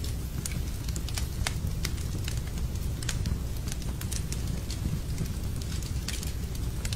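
Wood fire burning in a fireplace: irregular sharp crackles and pops, several a second at times, over a steady low rumble.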